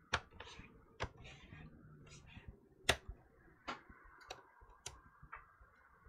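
Plastic snap clips of an Acer Nitro laptop's case clicking loose one after another as the case is pried apart by hand. There are about seven sharp, irregularly spaced clicks, with soft plastic scraping between them.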